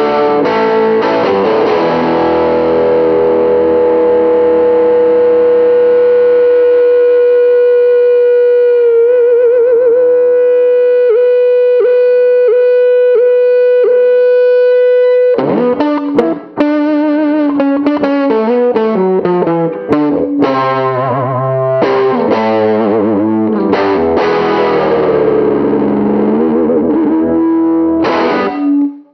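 Overdriven electric guitar, a fully hollow custom Gibson ES-330-style with P-90 pickups and a Bigsby, played through an amp at its breakup point. One note is held and sustains for about fifteen seconds, wavering and briefly broken partway through. It then gives way to a quick riff of changing notes, ending on a ringing note that cuts off suddenly.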